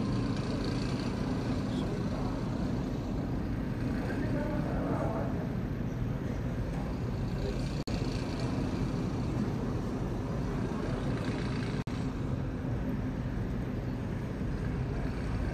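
Steady low rumbling background noise, briefly cut off twice, about eight and twelve seconds in.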